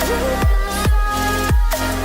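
Background electronic dance music with a steady, heavy bass-drum beat and sustained synth chords.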